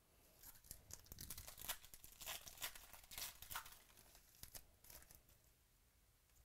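Foil trading-card pack wrapper being torn open and crinkled by hand: a run of crackly rips and rustles that dies away about five seconds in.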